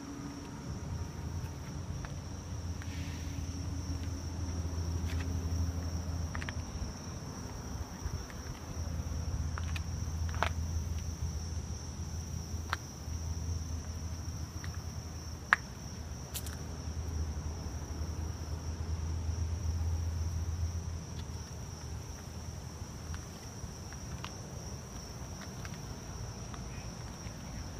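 Outdoor ambience: a steady high-pitched insect drone, under a low rumble that swells and fades a few times, with a few faint clicks.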